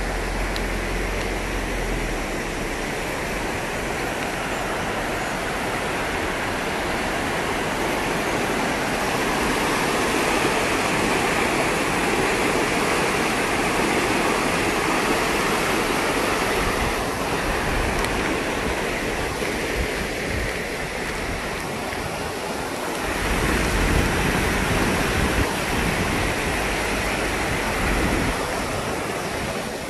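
River water rushing steadily over rocks, with a low rumble in the first couple of seconds and a change in the water's sound about 23 seconds in.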